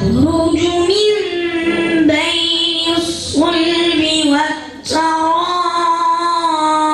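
A boy reciting the Quran in melodic tajweed chant, his voice held on long drawn-out notes in about four phrases with brief breaths between.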